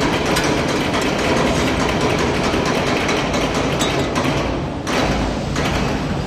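Hydraulic press brake running: a steady low electric-motor hum under loud, rattling machine noise, which drops away for a moment about three-quarters of the way through, then picks up again.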